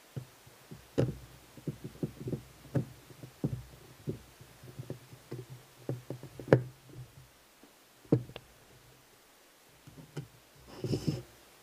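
Screwdriver and screws clicking and knocking against the metal shell of an airsoft gearbox as its shell screws are driven in: irregular small taps, with two sharper knocks about six and eight seconds in and a quick cluster of knocks near the end.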